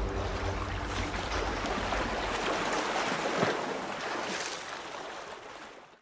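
Agitated liquid churning in an anodizing tank: a steady rushing, splashing water noise that fades out near the end.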